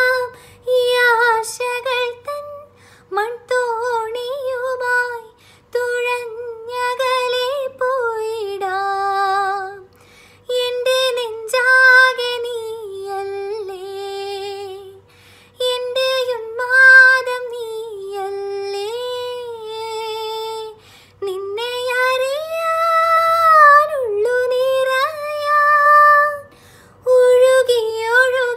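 A woman singing a slow Malayalam song solo, with no accompaniment heard: long held, gliding phrases separated by short breaths.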